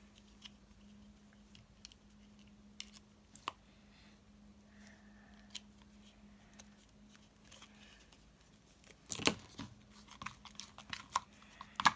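Spoon stirring clear school glue and food colouring in a bowl: faint scattered clicks at first, becoming a busier run of clicks and scrapes about nine seconds in. A faint steady hum runs underneath.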